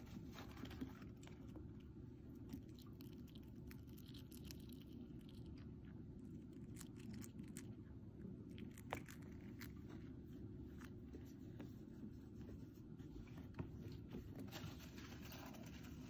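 Faint, scattered crunching clicks of a dwarf hamster nibbling dried mealworms held on a hand, over a steady low background hum.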